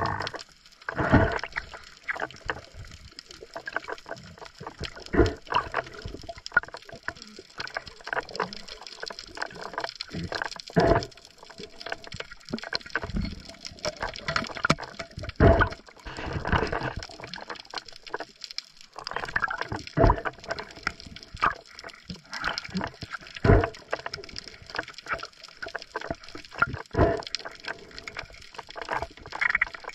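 Water movement heard underwater, with irregular muffled knocks and surges every second or two and a faint steady hum beneath.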